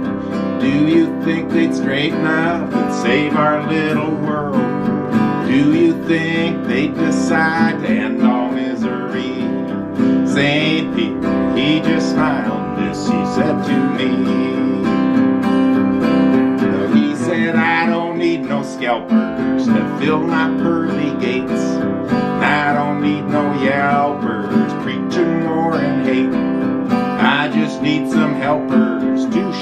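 Acoustic guitar strummed with a pick, playing the chords of a song steadily throughout.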